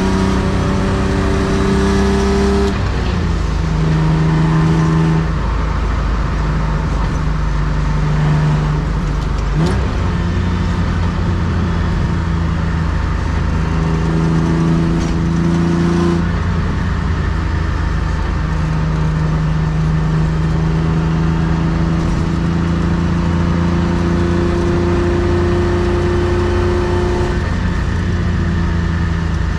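1993 BMW E36 325i's M50B25 2.5-litre straight-six, fitted with aftermarket headers and exhaust, heard from inside the cabin under way. Its pitch climbs, then falls back about three seconds in. It rises and falls once more, then runs at a fairly steady cruise with slow rises in pitch, and falls back again near the end, over constant road and tyre noise.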